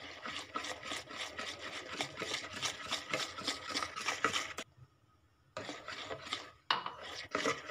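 Wire whisk beating egg, sugar and oil sponge batter in a plastic bowl, in fast, even strokes. It stops for about a second a little past halfway, then starts again.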